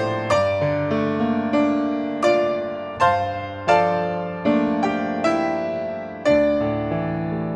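Solo piano music: slow, gentle chords and melody notes struck about once every second and left to ring out.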